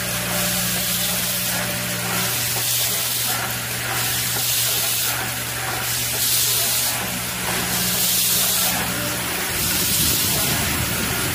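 Vibratory bowl feeder running with a steady low hum while small stamped steel nuts rattle along its track, together with an automatic tapping machine; a loud hiss swells and fades about every second and a half. The hum drops out about nine and a half seconds in.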